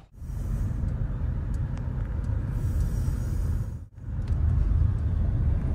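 Steady low rumble of a car on the move, breaking off briefly about four seconds in.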